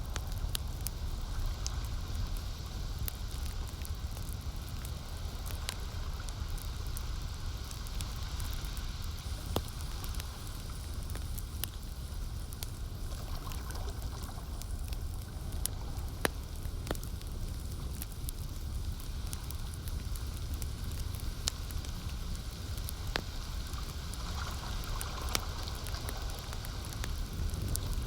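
Campfire crackling, with scattered sharp pops over a steady low wash of lake water.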